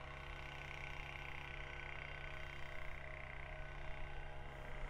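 Faint steady hum of background noise, with no distinct sounds.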